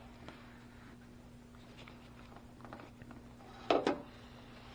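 Quiet hand work on a battery cable: a faint steady hum, then a few sharp clicks of tools or cable being handled a little after three and a half seconds in.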